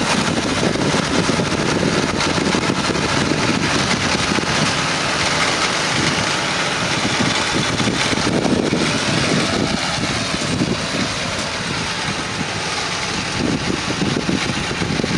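Tractor engine running steadily while working a tractor-drawn field implement, a loud, continuous rushing mix that eases slightly for a few seconds past the middle before picking up again near the end.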